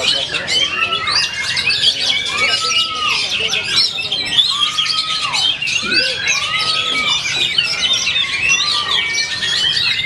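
Many caged oriental magpie-robins (kacer) singing at once: a dense, continuous tangle of fast chirps and warbles. A few long, arched whistles come through under it, about every two seconds.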